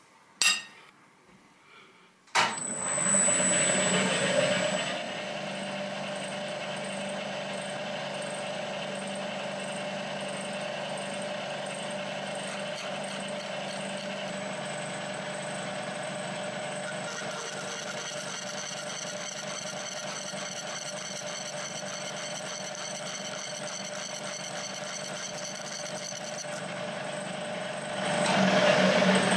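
Milling machine spindle starting about two seconds in, its whine rising as it spins up, then running steadily as a 1 mm slitting saw cuts screwdriver slots in threaded stainless inserts. The sound gets louder again near the end.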